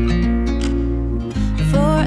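Background music: a gentle pop song with acoustic guitar and bass, between sung lines, with the voice coming back in near the end.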